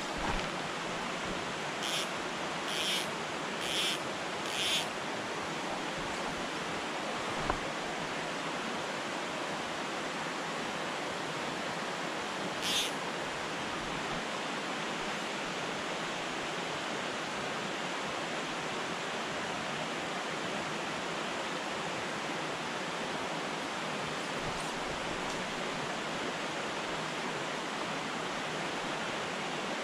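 Creek water running steadily over a rocky riffle, an even rushing hiss. Four short high-pitched sounds come about a second apart in the first five seconds, and one more about 13 seconds in.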